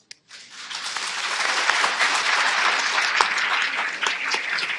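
Audience applauding: the clapping starts about a third of a second in, swells over the next two seconds and holds steady.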